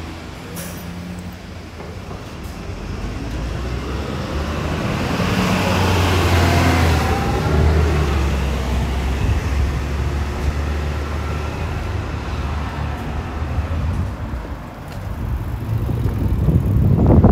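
Street traffic: a motor vehicle passes by, its sound swelling to a peak about six seconds in and then fading, over a steady low hum of road noise.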